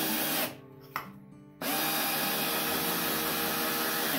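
Craftsman 20V cordless drill in its low speed setting driving an exterior deck screw into a wooden 2x3. The motor runs, stops about half a second in, a click comes at about one second, then it runs again steadily until the end as the screw goes in.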